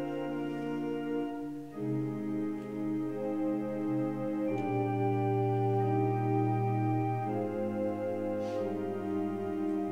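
Organ playing slow, sustained chords, each held for a few seconds before moving to the next.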